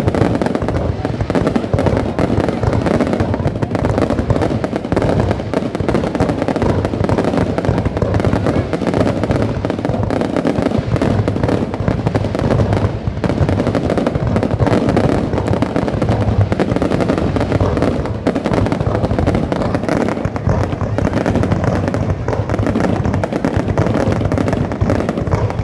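Fireworks display: a dense, continuous barrage of bursts and crackling with no pauses.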